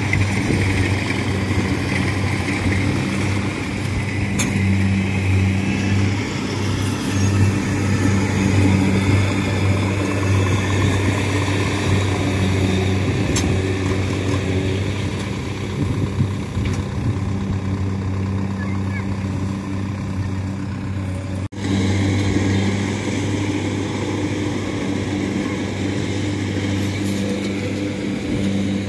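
Diesel engines of a tracked rice-hauling cart and a Kubota combine harvester running steadily at an even pitch, a low drone. The sound drops out for a moment about two-thirds of the way through.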